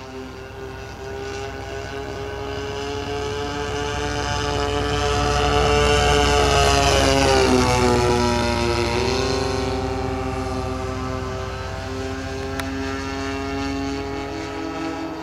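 Two DLE 30 two-stroke gas engines of a large RC twin-fuselage plane droning in flight. The sound swells as the plane makes a low pass, dropping in pitch as it goes by about eight seconds in, then carries on more evenly.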